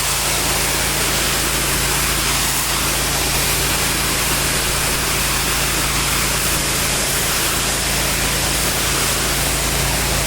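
Hydro Tek hot-water pressure washer running under load: a steady hiss of high-pressure water spraying over the constant hum of its 30 hp air-cooled Kohler engine.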